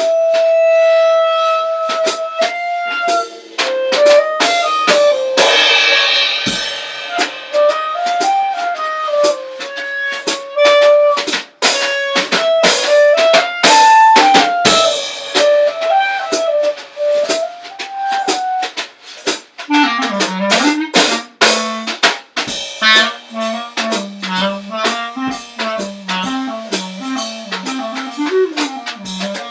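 Clarinet and drum kit improvising together: the clarinet holds a long note, then plays winding melodic runs, dropping into its low register about two-thirds of the way through, over snare, bass drum and cymbal hits, with a cymbal wash near the start.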